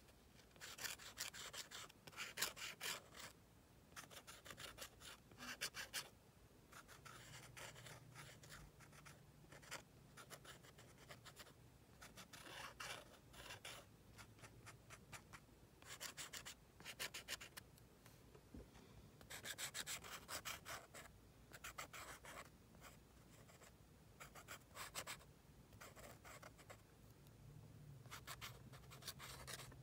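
Faint scratching of a fine-tipped drawing pen across a paper page in clusters of quick short strokes, with brief pauses between them.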